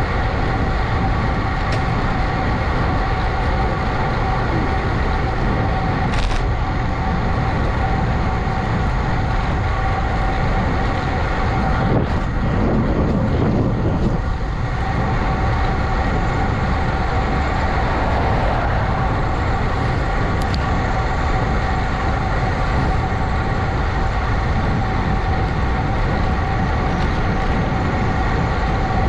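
Steady wind and road noise of a ride in motion, loud on the microphone, with a constant whine of several steady tones over it.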